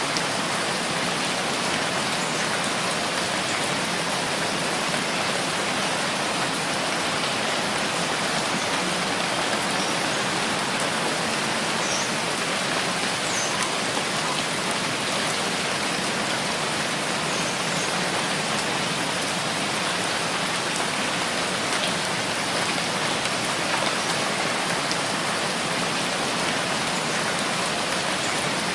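Steady rainfall: a dense, even hiss of rain falling on a surface, with a few separate drops ticking now and then.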